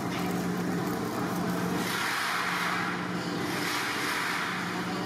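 Steady low mechanical hum under a rushing hiss that swells twice.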